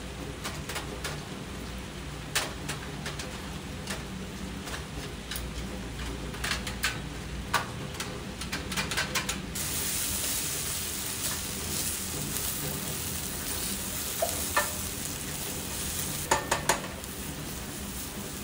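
Potato chunks sizzling in oil in a frying pan on a portable butane camp stove, with a spatula scraping and clacking against the pan as they are stirred. The sizzle grows louder about halfway through, and a quick run of clacks comes near the end.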